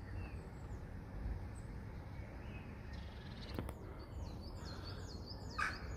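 Quiet outdoor ambience: a steady low rumble with small birds chirping faintly, and a quick series of repeated high chirps near the end.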